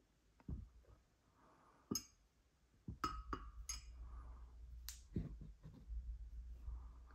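Quiet handling noises: a few sharp clicks and taps, about two to five seconds in, over a low rumble that sets in around three seconds.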